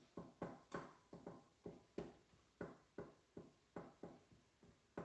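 Spoon scraping and knocking against the stainless-steel inner pot of an Instant Pot while stirring and breaking up sausage browning on sauté. The strokes are soft and come about three times a second.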